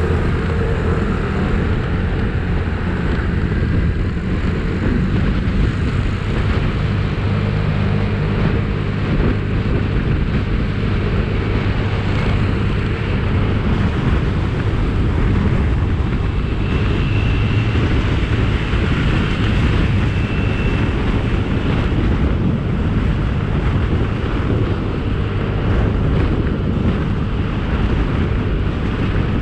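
Wind rushing steadily over the microphone of a handlebar-mounted action camera on a moving motorbike, with the motorbike's engine running underneath.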